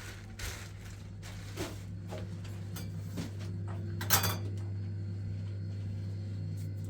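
A few short knocks and clicks over a steady low hum, the loudest knock about four seconds in.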